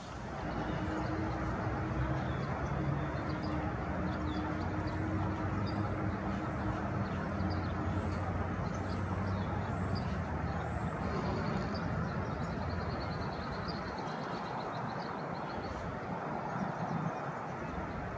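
A steady low engine drone with a hum in it, easing off after about eleven seconds, while small birds chirp and give a short high trill in the middle.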